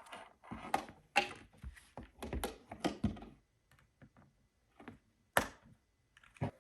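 Clicks and knocks from a keyboard being handled as its cable is plugged in: a busy cluster of small hard taps and thunks in the first three seconds, then a few single clicks.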